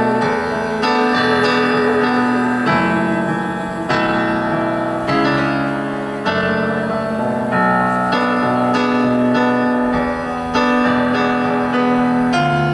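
Instrumental passage of a slow Greek pop ballad on a stage keyboard with a piano sound, sustained chords struck afresh about once a second.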